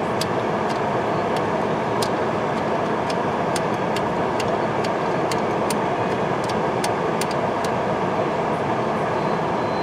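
Steady running noise heard from inside a stopped car, likely the idling engine and heater blower. Faint light clicks come about once a second.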